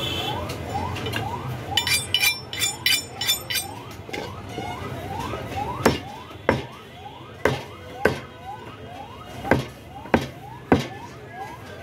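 Steel cleaver chopping goat ribs on a wooden chopping block: about eight sharp chops in the second half, after a few ringing metallic clinks. A repeating rising, siren-like wail sounds throughout in the background.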